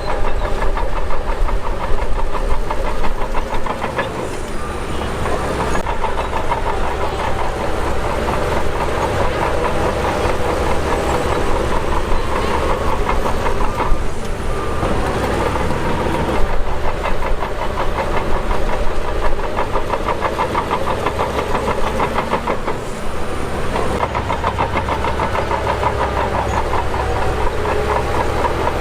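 Shantui DH17 bulldozer working: its diesel engine runs steadily under load over a continuous rattling clatter of the steel tracks, with the engine note easing and picking up again a few times.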